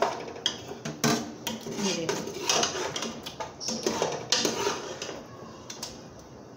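A metal ladle scraping and knocking against the inside of a pressure cooker pot while thick cooked mutton is scooped out into a bowl: a run of sharp scrapes and clinks that thin out near the end.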